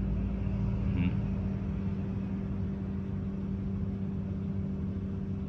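Steady low hum with a deeper rumble underneath that eases off about two seconds in.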